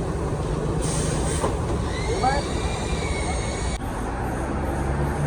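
Large diesel engine idling with a steady low drone. A short hiss comes about a second in, and a high whistle-like tone rises and falls from about two seconds, cutting off suddenly near four seconds.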